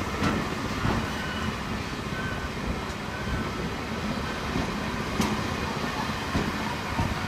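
Loaded freight wagons of a pulp train rolling past close by: a steady rumble of wheels on rail, with a few sharp clacks here and there.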